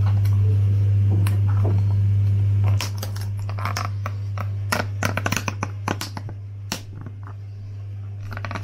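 Clear plastic lid being prised off a takeaway food container, crackling and clicking in quick irregular snaps. Under it runs a steady low hum that drops in level about three seconds in.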